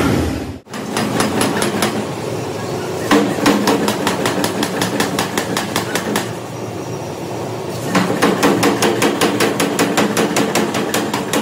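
Rapid, evenly spaced metal strikes, several a second, in two runs with a lull of about two seconds between them, over a steady machine hum.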